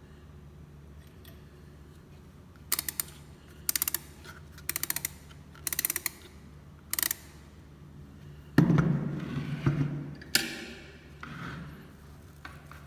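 Clockwork mechanism of a Karl Griesbaum antique singing bird cage being wound: five short bursts of rapid ratchet clicking about a second apart, then a louder knock and handling noise about two-thirds in. No birdsong whistle follows, as the mechanism is not working.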